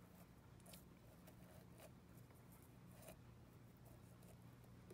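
Near silence: faint light clicks and rustles as a mesh bag of plastic specimen tubes is pressed down into the steel chamber of a critical point dryer, over a steady low hum.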